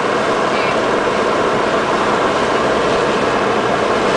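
Steady, loud wash of heavy rain and flood water against a car being driven through a storm, heard from inside the cabin.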